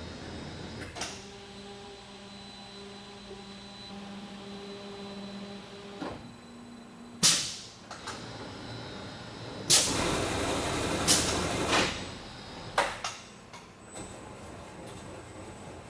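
Biesse Comil Performer TP automatic feed-through case clamp running: a steady motor hum with several even tones, then sudden hissing bursts of air and a longer rush of air about ten seconds in, followed by sharp clanks and knocks as the pneumatic clamp moves.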